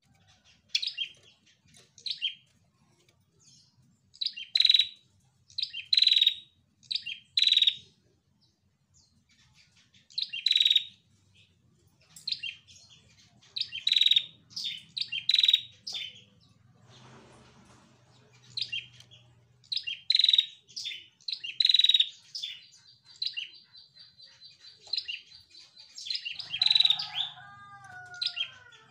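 Female prenjak calling: short, sharp, high chirps in quick runs of two to four, with pauses between runs. Near the end a thin held high note and a few falling lower notes join in.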